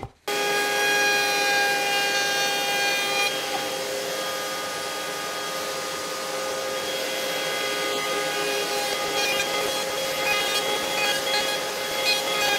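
Table-mounted Bosch POF 1400 ACE router spinning a flush-trim bit at a steady whine. From about nine seconds in, rough cutting noise comes on top as beech boards are fed across the bit to chamfer their edges.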